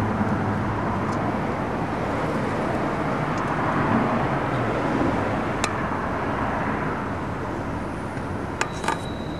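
Steady outdoor background noise with a low rumble, like distant traffic. A sharp click comes a little past halfway, and two or three more come close together near the end.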